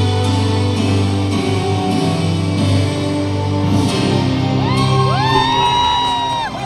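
Live rock band playing a power ballad through the stage PA. About four and a half seconds in, a long high wail slides up and is held, then drops away near the end.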